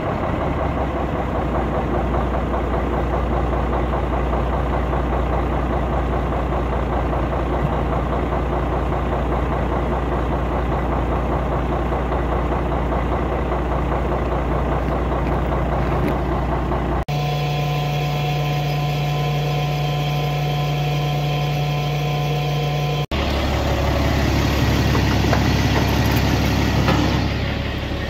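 Heavy farm machinery engine running steadily. The sound changes abruptly twice, about seventeen and twenty-three seconds in, and the middle stretch has a steady low hum.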